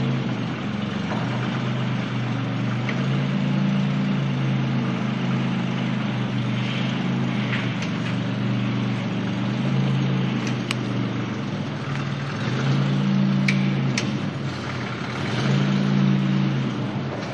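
Engine of a home-built Toyota off-roader on GAZ-66 axles running steadily, with the revs rising a couple of times in the second half. A few sharp metallic clicks sound over it.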